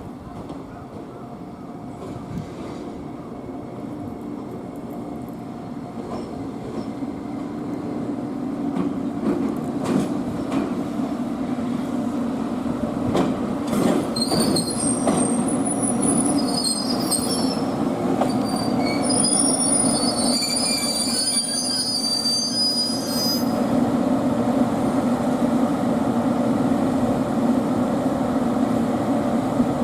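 An electric train moving slowly along depot tracks, growing steadily louder as it approaches. It clicks over rail joints, then its wheels squeal high-pitched on the curves for several seconds in the middle before settling back to a steady running sound.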